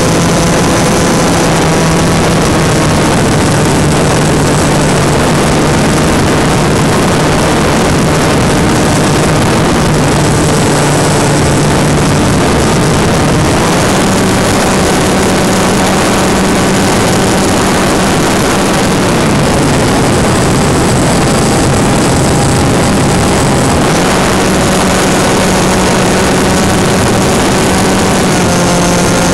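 Turnigy Park 250 2200 kV brushless motor driving a 5 x 4.3 propeller on a Turnigy Bonsai flying wing, a steady buzzing whine picked up by a camera on the airframe, over a rush of air. Its pitch steps up with throttle about halfway through, drops back a few seconds later, rises again, and falls at the very end.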